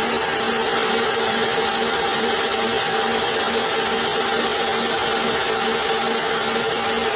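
Metal lathe running steadily while turning metal, a constant machine hum over a hiss of cutting.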